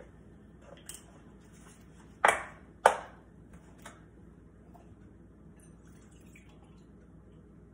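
Two sharp knocks about half a second apart, a little over two seconds in. Then faint splashing as barista-blend oat milk is poured from a carton into a steel milk pitcher.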